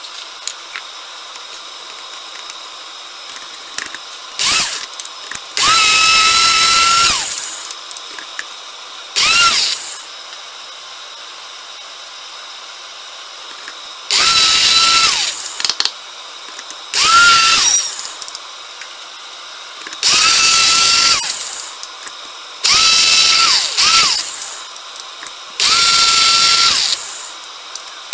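Personal blender pulsing a cup of green herbs for pesto: about eight short bursts of a second or so, each with a motor whine that rises as it spins up and falls as it winds down, with pauses of a few seconds between them.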